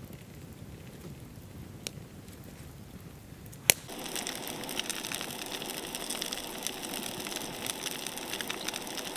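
Wood campfire burning with low crackling and a sharp pop about two seconds in, then a loud snap. From about four seconds in, food frying in oil in a pan: a steady sizzling hiss full of fine crackles.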